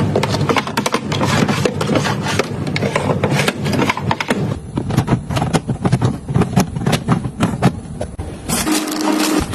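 Household items being handled and set down: a dense run of taps, clicks and rubbing. About a second before the end the sound changes abruptly and a short low hum sets in.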